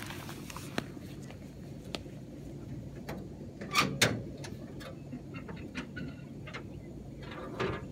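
Scattered clicks and knocks of hands working the hood of a Chevrolet step van. The loudest clunks come about four seconds in, as the hood is unlatched and swung up.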